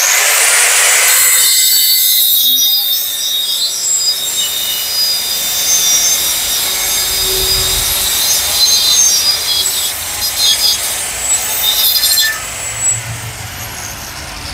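Ralli Wolf RW-125 electric marble cutter switched on and run through a wooden stick, its blade spinning with a loud high-pitched whine and grinding as it cuts the wood. The noise eases about twelve seconds in as the cut finishes.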